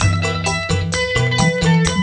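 Dangdut band music without singing: electronic keyboard over a quick, steady drum beat and bass.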